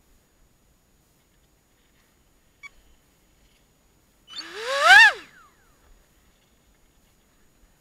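Electric motor of a Multiplex FunJet Ultra pusher jet briefly throttled up and cut: a whine that rises in pitch for about half a second, then drops away quickly, about five seconds in.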